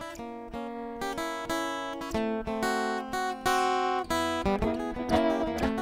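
Acoustic guitar playing an instrumental intro, a series of plucked and strummed chords, each struck and left to ring.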